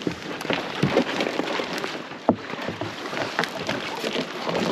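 Thin ice and wet snow crackling and crunching under a canoe being worked across weak ice, a dense run of irregular small cracks with one sharper crack a little past halfway.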